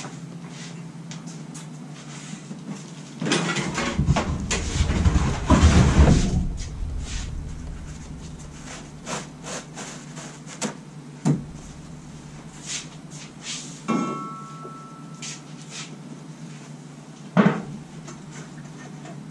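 Off-camera workshop handling noise: irregular knocks and clatter of things being moved and set down, loudest about four to six seconds in, then scattered clicks, a brief squeak and one sharp knock near the end.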